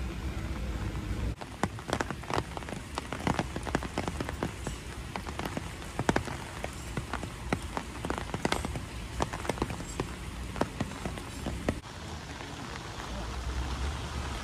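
Rain falling, with drops striking close to the microphone as many irregular sharp taps. The taps start about a second in and stop near the end; a steady low rumble lies under the rain before and after them.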